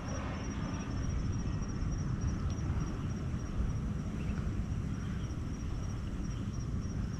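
Wind buffeting the microphone: an uneven low rush that comes and goes, with a faint steady high-pitched whine behind it.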